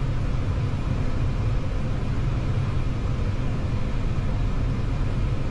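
Steady low rumble of airflow and engines inside the cockpit of an Airbus airliner on short final approach, just a few hundred feet above the runway.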